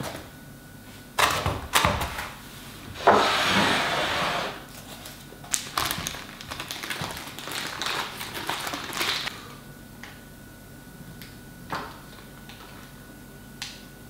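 A round cheese box is handled and opened with a couple of sharp knocks. Then the cheese's paper wrapping rustles and crinkles for several seconds as it is unfolded, and a few light taps follow near the end.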